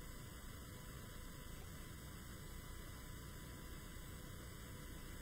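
Faint, steady electrical hum and hiss: room tone with no other sound.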